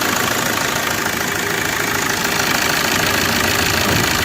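Suzuki Dzire's 1.3-litre DDiS four-cylinder diesel engine idling steadily, freshly fitted with a new timing chain and hydraulic lash adjusters. It runs clear, without the puffing from the air intake it made when the timing was off.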